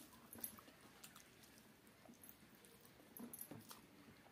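Very faint, scattered squishing and light clicks of fingers mixing soft rice and fried vegetables on a steel plate, with a little chewing. A few slightly louder clicks come about half a second in and again past the three-second mark.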